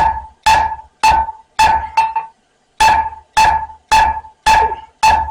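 Blacksmith's hammer striking hot spring steel over the horn of an anvil, about two blows a second with a brief pause about two seconds in. Each blow rings with a clear metallic tone, drawing out the steel.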